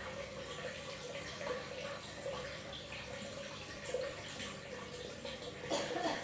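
Scissors cutting and handling a sheet of aquarium filter wool: steady rustling with a few louder snips, the loudest near the end.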